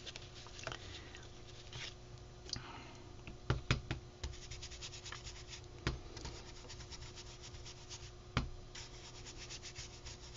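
A small ink applicator scrubbing and dabbing ink through a cardboard stencil cut from a Kleenex box onto a paper envelope: soft, faint rubbing strokes with a few light knocks, the strokes quickening near the end.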